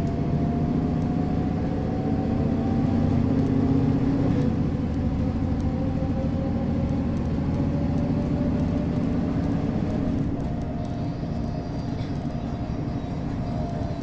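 Mercedes-Benz O405 city bus's six-cylinder diesel engine pulling the bus through a turn and past, its pitch rising slowly as it accelerates. About ten seconds in, the note drops back and the sound fades as the bus moves away.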